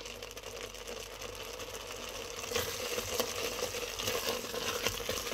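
Grated carrots frying in ghee, crackling and sizzling in the pot while a spatula stirs and scrapes through them, the stirring growing louder about two and a half seconds in. A steady hum runs underneath.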